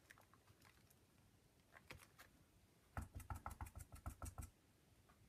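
A homemade arrow stamp dabbed repeatedly into black paint on the work surface, making a quick run of soft taps, about six or seven a second for a second and a half. A few faint clicks come before it.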